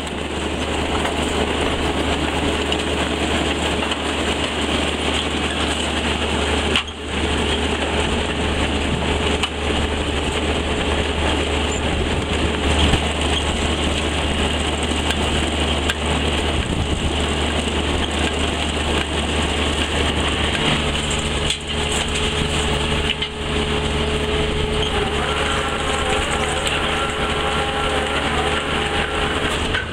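Tractor and potato harvester running steadily in the field, with a continuous engine drone and the clatter of the machine's workings. About 20 seconds in, extra steady engine tones join.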